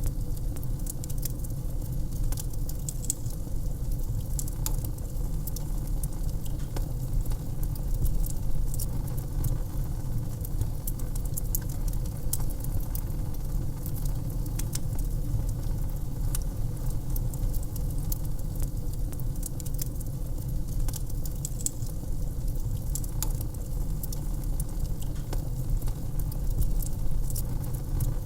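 Wood fire crackling in a fireplace: irregular sharp pops and crackles over a steady low rumble.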